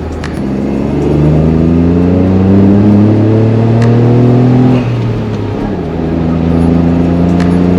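Honda S660's turbocharged 660 cc three-cylinder engine and exhaust pulling hard under acceleration, revs climbing steadily; about five seconds in the revs drop sharply for a manual upshift, then climb again in the next gear.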